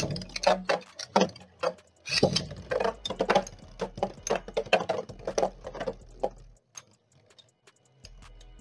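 Two Beyblade spinning tops in a plastic stadium: a sharp launch at the start, then rapid clicking and clattering as the metal-wheeled tops strike each other and the plastic walls. The clatter is densest about two to three and a half seconds in and stops about six and a half seconds in.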